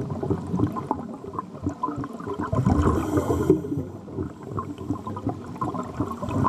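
Scuba regulator exhaust bubbles gurgling and rumbling, heard underwater, with a louder stretch about three seconds in.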